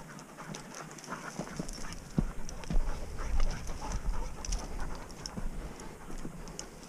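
Working springer spaniel panting close by, mixed with footsteps crunching and clicking on loose stones and brush; a low rumble sets in about a second and a half in.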